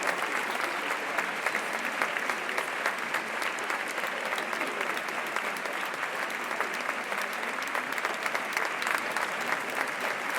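Crowd applauding: many people clapping in a dense, steady patter that keeps an even level throughout.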